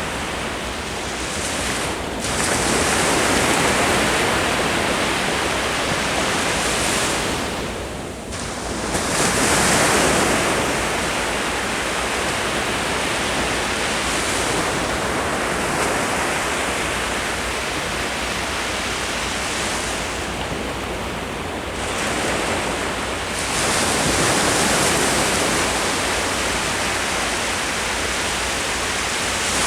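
Ocean surf: waves breaking and washing up the shore in a continuous rush that swells louder several times.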